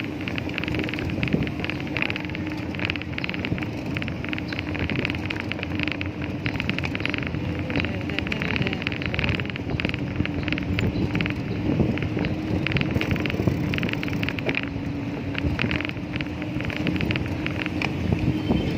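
Riding noise from a bicycle on asphalt: wind on the microphone and tyre rumble, with a rapid, uneven rattle of clicks and a steady low hum underneath.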